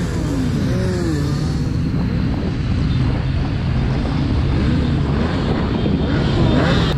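A large group of motorcycles riding together: a steady engine and road drone, with engine notes that swell and fall several times as bikes rev and pass.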